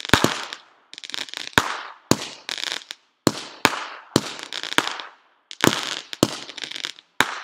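Firecrackers going off one after another, roughly two sharp bangs a second, each trailing off in a crackle, with two short pauses in the string.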